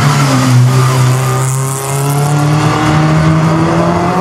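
Škoda Felicia rally car accelerating hard past on a snowy road. The engine note is held high, breaks briefly about two seconds in, then climbs again as the car pulls away.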